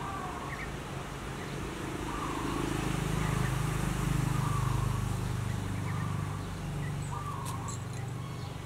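A motor vehicle's engine hum that swells and then fades, as if passing, with a bird's short chirps repeating about once a second over it.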